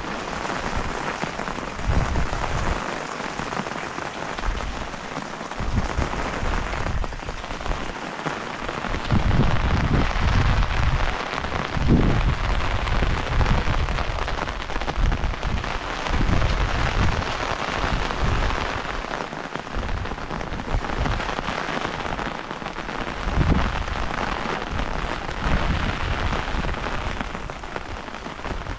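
Steady heavy rain falling, with irregular low rumbles coming and going underneath.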